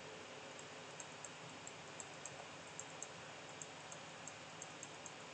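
Light, irregular clicking, a few clicks a second, from computer input while painting in the software, over a faint steady hiss.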